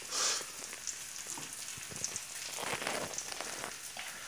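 Steady fine crackling sizzle of onions frying in butter in a hot skillet, with a short louder hiss at the start.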